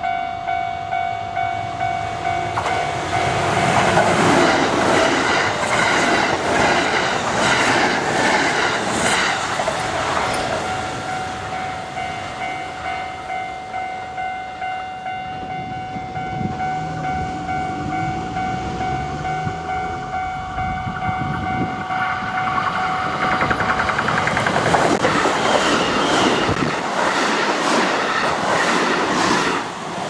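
A Japanese level crossing's warning bell rings on in a fast, even ding-ding. Electric trains clatter over the crossing twice, once from about three seconds in and again near the end, their wheels rattling over the rail joints.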